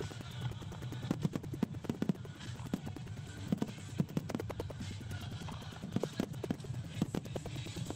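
Rapid barrage of aerial firework shells bursting, several sharp bangs a second in an irregular stream, during a finale. The sound track has been altered by the uploader, so the bangs may sound processed.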